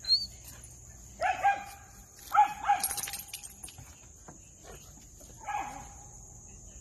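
A dog barking in high-pitched barks: two quick ones about a second in, two more a second later, and one more about five and a half seconds in. Crickets chirr steadily behind, and a brief high squeak sounds at the very start.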